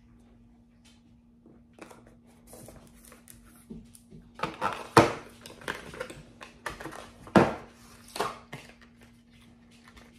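Small cosmetic packaging being handled on a wooden table: cardboard box flaps opened, containers set down, with rustling, taps and clicks, the sharpest knocks about five and seven and a half seconds in. A faint steady hum lies underneath.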